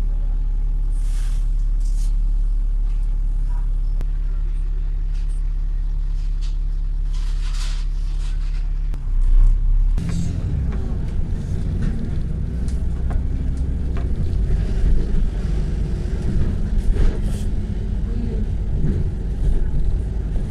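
Bus engine idling steadily, heard from inside the bus while it stands stopped. About nine seconds in, the engine speeds up as the bus pulls away, and engine and road noise run on as it drives.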